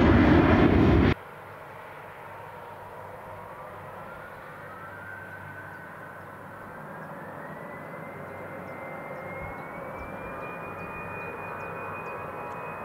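Loud jet airliner roar that cuts off abruptly about a second in. Then a quieter airliner turbofan whine rising slowly in pitch as the engines spool up.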